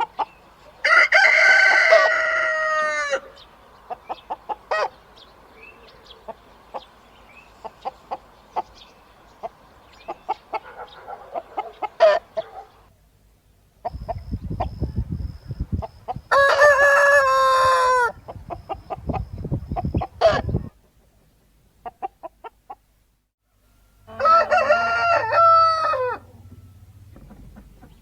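Roosters crowing three times, each crow about two seconds long and dropping in pitch at the end, with chickens clucking in short calls in between. A low rumble sits under the second crow.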